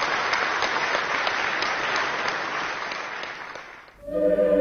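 Large audience applauding, the clapping thinning and fading out about four seconds in. Music with held tones starts near the end.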